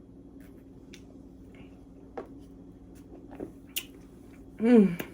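A few small mouth and bottle clicks, then a short pitched burp about four and a half seconds in, from a woman who has been drinking carbonated soda.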